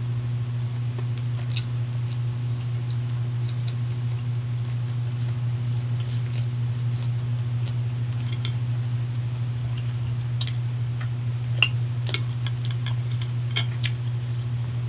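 A spoon clinks and scrapes on a plate while someone eats, with a few sharper clicks near the end, over a steady low hum.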